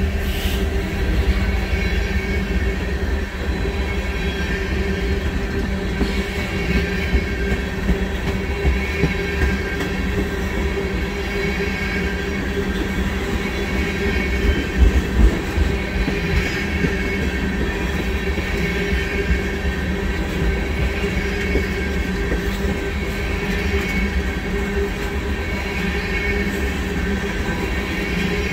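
Oil train tank cars rolling past close by: a steady rumble of steel wheels on rail, with a faint high squeal ringing from the wheels and a few louder knocks about halfway through.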